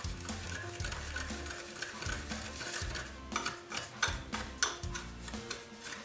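Wire whisk stirring dry sugar and cornstarch in a glass bowl: a quick run of scraping and ticking as the wires rub the powder and knock the glass, growing sharper about halfway through. Soft background music plays underneath.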